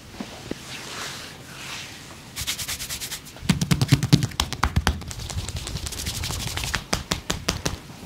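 Soft rubbing, then from about two and a half seconds in a fast run of sharp slaps or taps, many a second, with heavier thuds around the middle: percussive massage strokes on the body.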